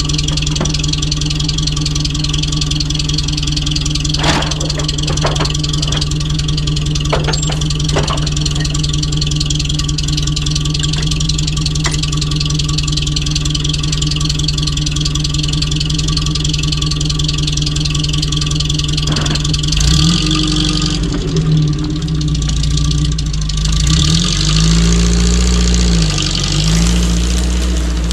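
UAZ off-road vehicle's engine running at a steady idle, with a few sharp knocks about four to eight seconds in. In the last third it revs up and down several times.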